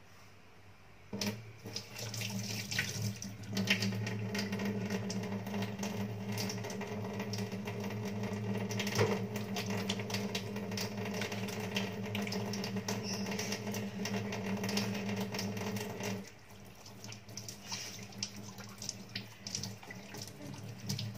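Kitchen tap running into the sink as hands are washed under the stream. The flow starts about a second in and drops to a quieter splashing about sixteen seconds in.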